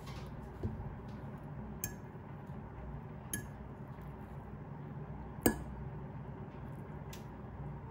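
Metal fork clinking against a bowl while eating noodles: about five sharp clinks a second or two apart, the loudest about five and a half seconds in, over a low steady hum.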